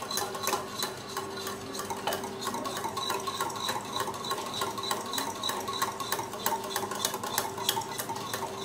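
Wire whisk beating eggs in a glass bowl: quick, rhythmic clicking and tapping of the whisk against the glass, several strokes a second.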